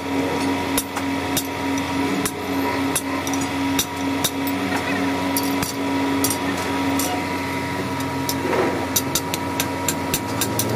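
Hand hammer striking steel on a small anvil block in a leaf-spring repair shop: sharp, uneven blows that come faster in the last couple of seconds, over a steady machine hum.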